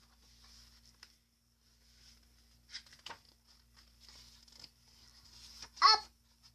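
Faint rustling and a couple of soft clicks as a children's picture book is handled and its page turned. About six seconds in comes one short, loud vocal sound from a young girl.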